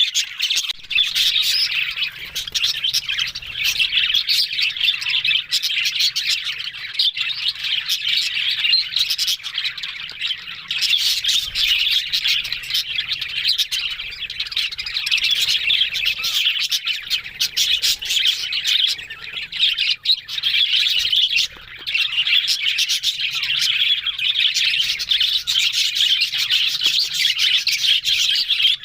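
Several budgerigars chattering and warbling without a break, a dense stream of high chirps and clicks.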